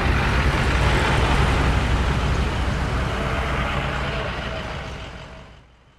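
A line of tow trucks driving slowly past, engines running with tyre and road noise; the sound fades away near the end.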